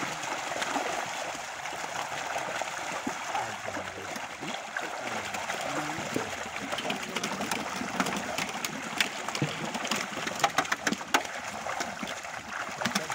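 A mass of fish crowded in a drawn net thrashing in shallow pond water: a continuous churn and patter of splashes with sharper slaps, busiest in the second half.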